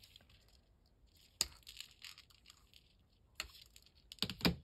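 Faint handling noises as beading string and craft supplies are picked up and moved: soft rustling with a few sharp clicks, the loudest a quick cluster near the end.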